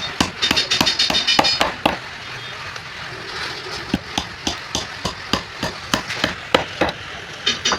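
Hammer driving nails into a wooden power-loom part (a pagadi billa) to tighten it: a run of sharp blows, two to four a second, with a metallic ring on the strikes in the first second and a half.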